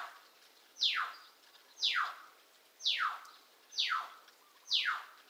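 A pet bird calling over and over: a high call that slides sharply downward, repeated about once a second, six times.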